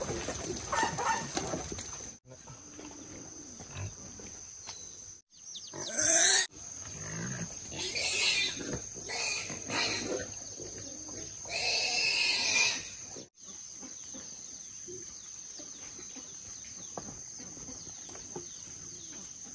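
Wild boars shut in wire-mesh cages squealing: a few loud, high, wavering squeals in the middle, with quieter stretches between.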